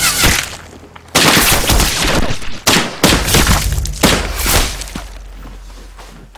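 A squad of soldiers firing rifles together in dense, overlapping volleys of gunshots. There is a short lull about a second in, and the firing stops about three-quarters of the way through, leaving a fading tail.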